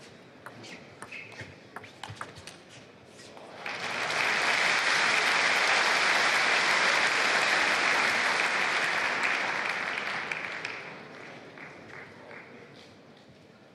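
Table tennis ball clicking off bats and table in a fast rally for about three and a half seconds. Then the hall's crowd breaks into applause as the point is won, holding steady and fading out after about seven seconds.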